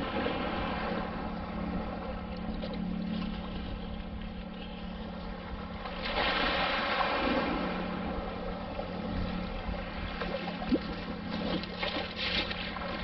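Shallow surf sloshing around a wader's legs while a long-handled titanium sand scoop is dug into the sandy bottom and lifted. The water swirls louder for a second or two about six seconds in, and a few small clicks and knocks come near the end.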